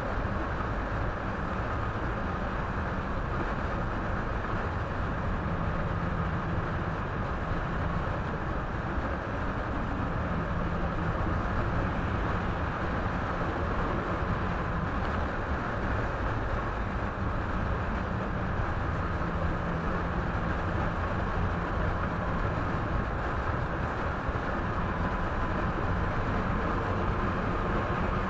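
Steady road and tyre noise of a car driving, heard from inside the cabin through a dashcam's microphone, with a faint steady hum.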